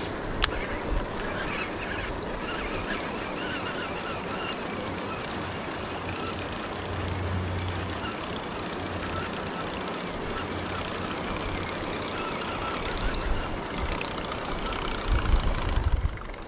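Wind blowing across the microphone: a steady rushing noise with uneven low buffeting, and heavier gusts near the end. A single sharp click about half a second in.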